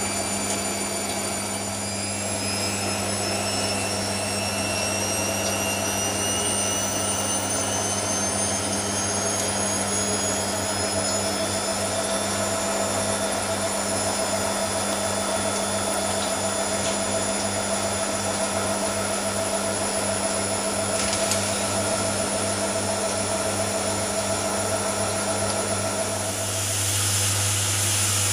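Hoover Nextra front-loading washing machine running between the wash and the first rinse: a steady low pump hum with a thin motor whine slowly rising in pitch. Near the end a hiss of water comes in and the hum gets louder as the machine moves into the first rinse.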